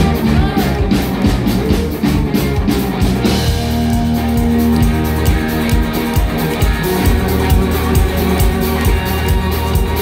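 Live rock band playing loud: electric guitars, bass and a drum kit.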